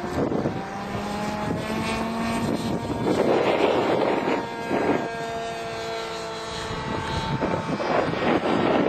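RC model AT-6 Texan's motor and propeller running at flying power through the takeoff roll and climb-out, a steady drone whose pitch rises a little in the first two seconds. Gusts of wind rush on the microphone now and then.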